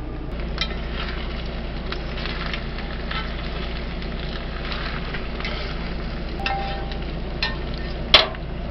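Lunch being warmed in a pan: food sizzling with scattered crackles and the scrape of a utensil stirring, over a steady low hum. A sharp click near the end is the loudest sound.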